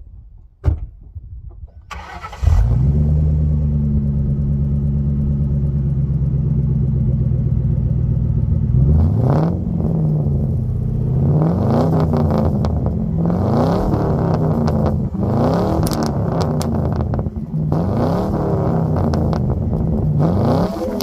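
A single sharp click, then the 1996 Mercury Grand Marquis's 4.6-litre V8 fires up about two and a half seconds in, breathing through a cat-back true dual exhaust with Vibrant resonators. It settles into a steady idle, then from about nine seconds in is revved in quick blips, about seven times, each rising and falling back.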